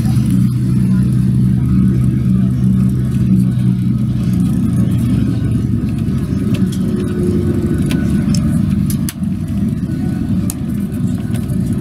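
Bus engine and road rumble heard from inside the moving bus's cabin. A steady engine hum for the first four seconds or so, then mostly an even low rumble.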